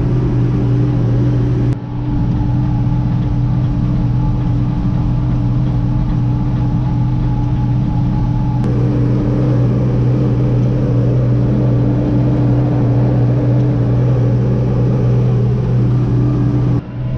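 McCormick tractor engine running steadily at working revs while pulling a New Holland round baler through straw, a constant low hum.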